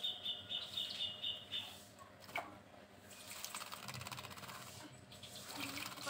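White-rumped shama bathing in a shallow water tray, splashing water with its wings and body from about three seconds in. Before that, a high steady bird chirping is heard for the first second and a half.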